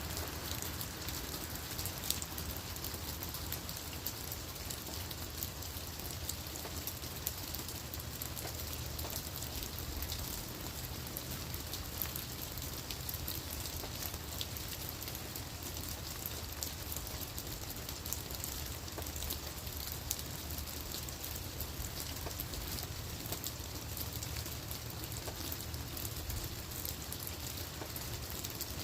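Steady rain falling on leaves and on the ground, a continuous patter with many separate drop hits ticking through it.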